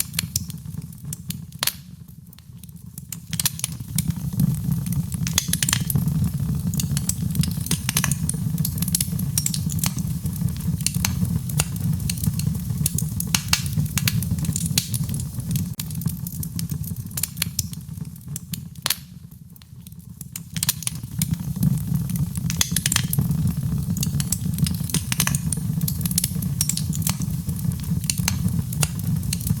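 Wood fire in a fireplace crackling, with irregular sharp pops and snaps over a steady low rumble of the flames. It goes quieter briefly twice, about two seconds in and again about nineteen seconds in.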